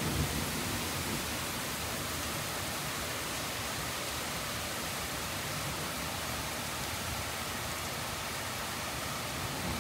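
Heavy rain falling steadily, an even hiss with no change in level.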